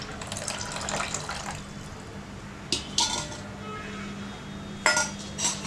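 Tamarind water poured into a pan of ground masala, splashing for about a second and a half before the pour stops. A few sharp clinks of utensils against the pan follow, two near the middle and two near the end.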